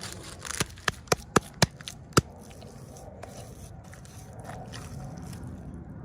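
Hands handling miniature toys and their packaging: six sharp clicks or taps in quick succession over the first two seconds, the last one loudest, then only low handling noise.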